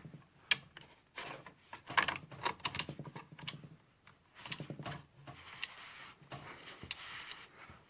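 Irregular plastic clicks, knocks and rattles from hand-handling a Brücke 36 V battery chainsaw's side cover and bar-tensioning knob as it is turned between lock and unlock.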